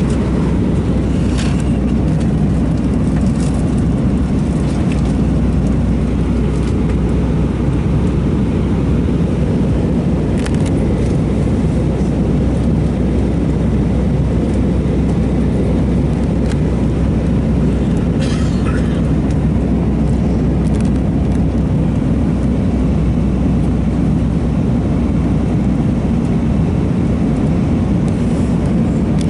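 Steady low drone inside the cabin of an Airbus A320-232 airliner in flight, from its IAE V2500 engines and the rush of air, with a few faint brief clicks.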